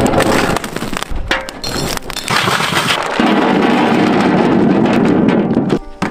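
A clatter of whole potatoes being poured out in a heap, many knocking together and hitting a metal platter, in quick irregular knocks and then a dense rattle. Music with steady tones comes in near the end.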